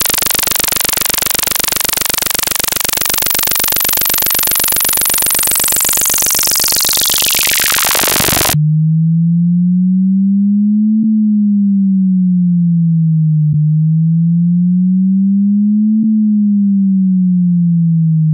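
Synthetic water-eject test tone for clearing a phone speaker. First a harsh, bright buzzing tone whose top end sweeps steadily downward, cutting off abruptly about eight and a half seconds in. Then a deep pure tone that slowly rises and falls in pitch twice, with a faint click every two to three seconds.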